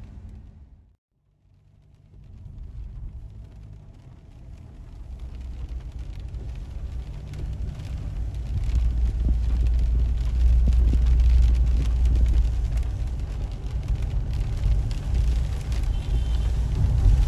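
Low rumble of a car driving on wet streets, heard from inside the cabin: engine and tyre noise. It drops out briefly about a second in, then builds back and grows steadily louder.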